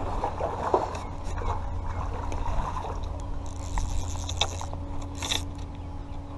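A hooked sheepshead fighting on a fly line, splashing at the water's surface during the first second. Scraping and handling noise follows, with a hiss about three and a half seconds in and a few sharp clicks near the end, over a steady low rumble.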